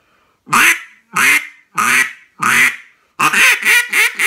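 Honey locust duck call blown in quacks: four long, separate quacks, then from about three seconds in a fast run of short quacks. The dense hardwood gives a crisp, loud tone that is a little harsh up close.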